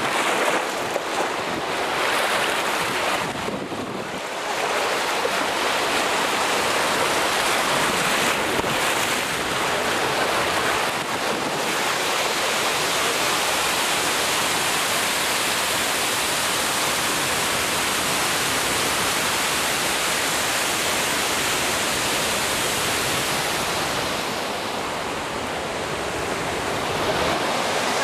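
Rushing, splashing water in a river rapids ride's concrete channel, heard from on board the raft, with wind noise on the microphone. A waterfall pours down close beside the raft around the middle. The noise is steady, with brief dips about four seconds in and near the end.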